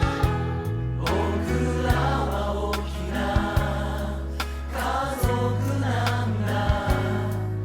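Background music with singing, a choir-like vocal over sustained bass notes and sharp percussion strikes.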